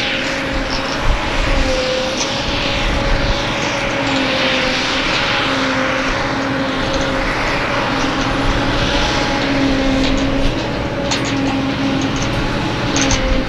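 Claas Jaguar 940 forage harvester chopping grass: a loud, steady machine drone with a held whine and a rushing noise that swells and ebbs.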